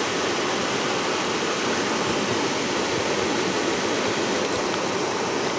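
Steady rush of flowing water, one even noise that neither rises nor falls.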